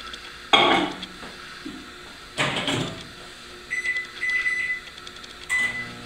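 Microwave oven being loaded and started: two clunks as the bowl goes in and the door shuts, a few short keypad beeps, then the oven starting to hum near the end.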